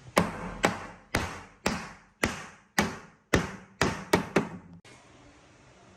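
Hammering: about ten sharp blows, roughly two a second, each ringing briefly. The last few come quicker, and then they stop.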